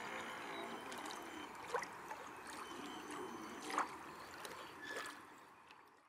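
Water lapping and rippling around a slow, drifting RC model motor yacht, with the faint whine of its twin 540 electric motors dying away in the first second or so. A few short, sharp sounds stand out, the loudest about four seconds in, and everything fades out at the end.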